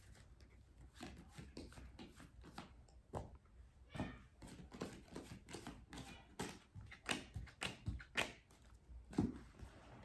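Tarot cards being shuffled and handled: faint, irregular soft taps and rustles, a little louder in the second half.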